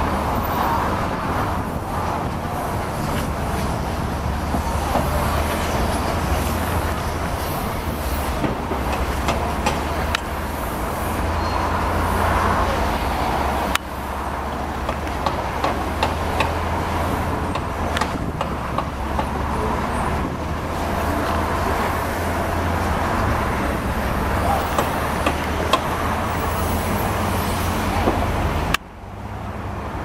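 Truck-mounted concrete pump working: a steady diesel engine drone with scattered sharp metallic knocks. The sound is cut off abruptly twice, once near the middle and once near the end.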